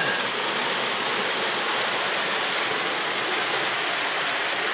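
Fast-flowing rainwater rushing and churning close by, a steady, even rush: runoff swollen by heavy rain.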